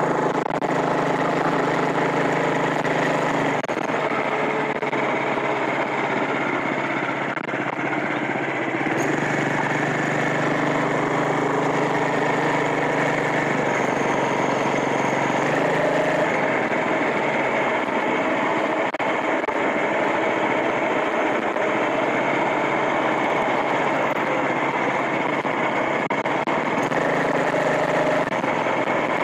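Small engine of a motorized bicycle running steadily under way. Its note shifts in pitch a few times.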